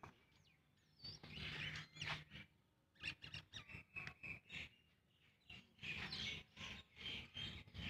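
Small birds chirping, with scattered light clicks and knocks.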